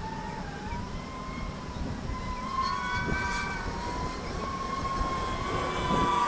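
Radio-control balsa Focke model plane in flight: a steady motor-and-propeller whine whose pitch wavers slightly up and down as it passes overhead.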